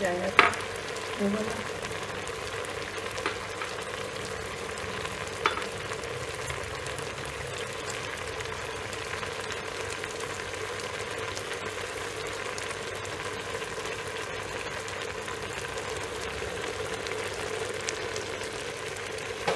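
Mutton tripe with tomatoes and garlic cooking down in its liquid in an open aluminium pressure cooker, making a steady bubbling sizzle. A few sharp clicks come in the first six seconds.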